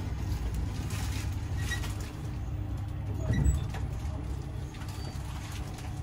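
A steady low rumble, with a single thump about three and a half seconds in.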